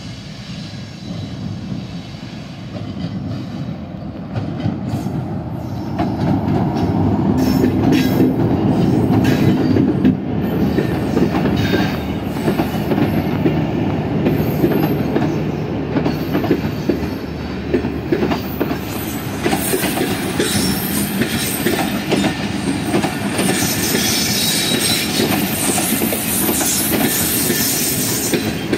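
Diesel locomotive of a passenger train passing close by, its engine drone growing loud about six seconds in, followed by the coaches rolling past with a rhythmic clickety-clack of wheels over rail joints. High-pitched metallic wheel squeal comes in during the last several seconds.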